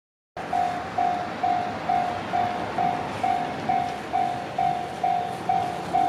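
Japanese railway level-crossing warning alarm ringing its repeated electronic 'kan-kan' bell tone, about two strokes a second, starting just under half a second in: the crossing is signalling an approaching train.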